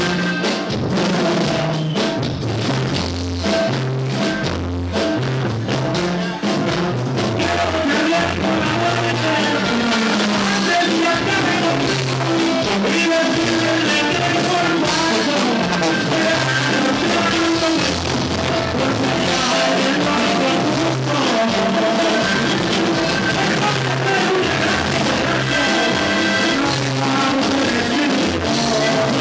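Live band music with accordion, a plucked bass line and a man singing into a microphone, in a steady dance rhythm.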